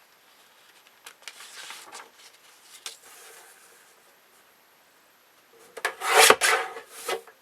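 Paper being cut: soft rasping strokes, then a louder, longer rasping stroke near the end.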